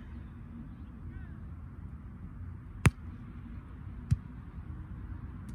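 Two sharp slaps of a volleyball being struck by hand: a loud one about three seconds in, then a softer one just over a second later. Under them runs a steady low outdoor rumble with faint distant voices.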